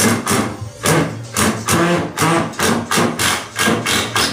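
Ryobi cordless driver sinking a screw into a wooden strip in repeated short bursts, about two or three a second, with music playing underneath.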